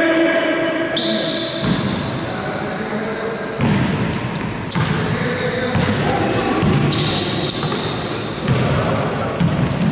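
Basketball game in a gym: the ball bouncing on the court with sneakers squeaking, under players' voices echoing in the hall. The squeaks come thickest in the second half.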